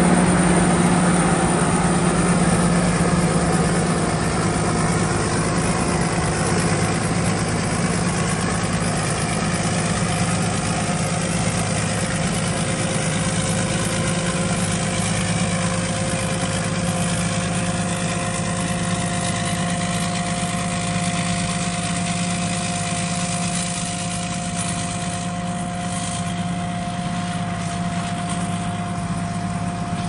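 Small tracked rice combine harvester running while it cuts and threshes rice: a steady engine hum with a steady higher whine over it, growing slowly fainter as the machine moves away.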